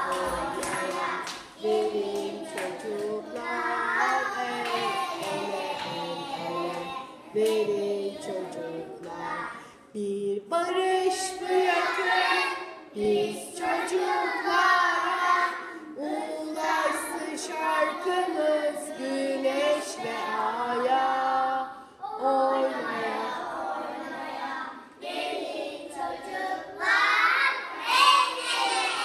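A group of young children singing a song together, in short phrases with brief pauses between them.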